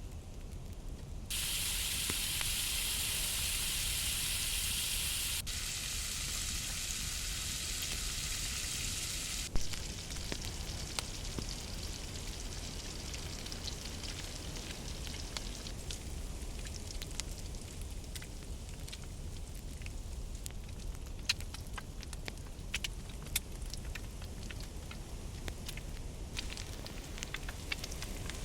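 Food sizzling in a hot pan over a wood fire, a loud even hiss that starts and stops abruptly, ending with one sharp knock. After that the wood fire crackles on with scattered sharp pops.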